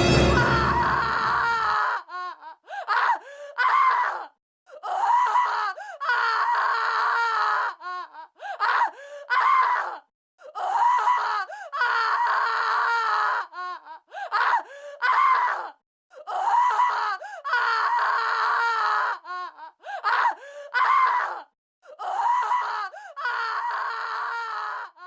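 Music that cuts off about two seconds in, then a thin, high-pitched voice-like sound that wavers in pitch and comes in repeated bursts of one to three seconds with short silent gaps.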